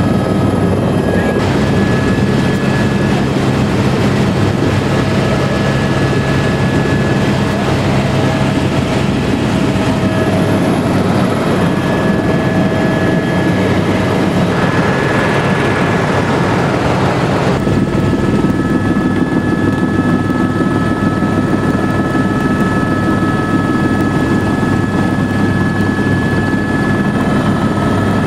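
Helicopter engine and rotor running steadily as the helicopter takes off and climbs away, heard from inside the cabin: a loud, even drone with steady whining tones on top. A little past the middle comes a rougher rush of noise for a couple of seconds, after which the tones shift.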